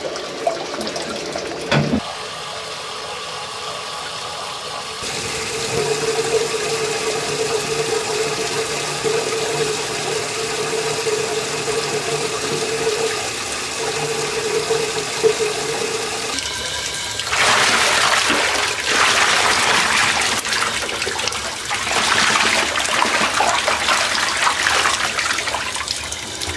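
Water running and splashing, with a steady hum through the middle stretch and louder rushing water over roughly the last ten seconds.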